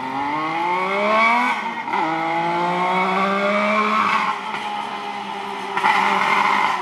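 Kawasaki KH250 two-stroke three-cylinder engine with a collector exhaust, accelerating. The pitch climbs, drops at a gear change about two seconds in, climbs again, then settles lower as the throttle eases about four seconds in. It turns louder and rougher near the end as the bike comes close.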